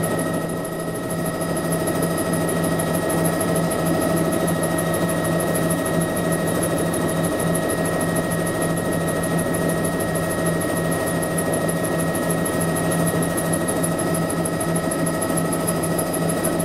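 Bell 206 JetRanger's Allison 250 turbine running steadily on the ground, heard from inside the cabin: a steady high whine over a fast, even beat.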